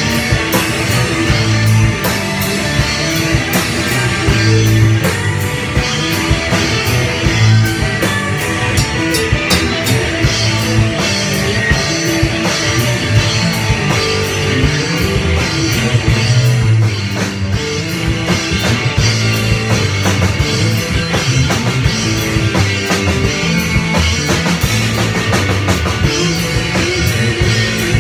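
A rock band jamming live: drum kit with cymbals and electric guitars playing loud and without a break.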